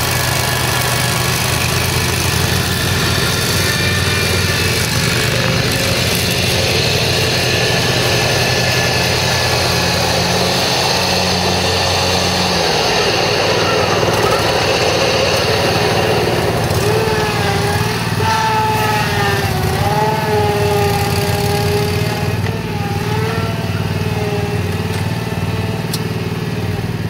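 Scag Turf Tiger zero-turn mower's 29-horsepower Kawasaki fuel-injected engine running steadily as the mower is driven and turned on grass, a sign that the machine runs and operates well. In the second half, a tone rises and falls in pitch over the steady engine sound.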